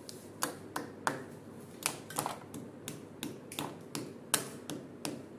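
Irregular sharp clicks and taps, about fifteen in five seconds, some louder than others.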